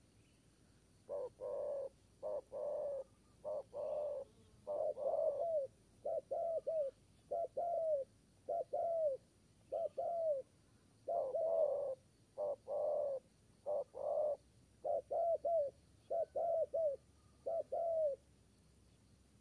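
Zebra dove cooing: a long series of short, staccato coo notes, many ending in a falling hook, delivered in quick clusters with brief gaps, beginning about a second in.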